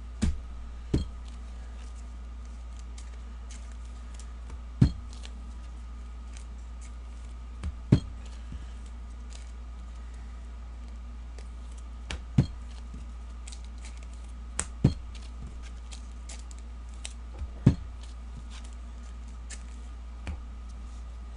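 Trading cards and packs being handled on a tabletop: scattered sharp clicks and taps every few seconds, with a few louder snaps, over a steady low hum.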